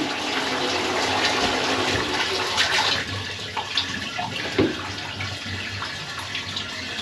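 Water rushing, louder for about the first three seconds and then easing to a quieter flow, with a few light knocks.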